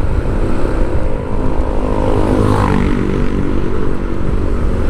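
Street traffic: a motor vehicle's engine drones close by over a heavy low rumble, its pitch easing slightly downward partway through.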